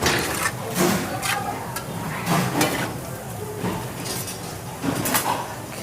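Vegetables being stirred in a hot sauté pan: a utensil scrapes and clinks against the pan in irregular strokes over a steady sizzle.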